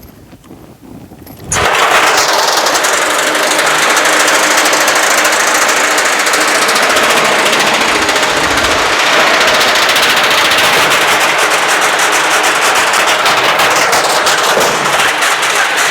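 Washing machine tub with car suspension springs welded on, its drum driven by the motor, clattering and banging very rapidly against the ground as it shakes on the springs. It starts suddenly about a second and a half in and keeps going steadily.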